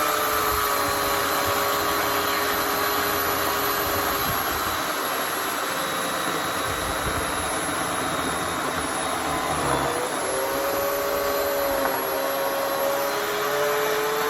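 Bauer 16-inch, 14.5-amp corded electric chainsaw running steadily while cutting through a thick log. Its motor whine sags briefly in pitch about ten seconds in as the chain bogs in the wood.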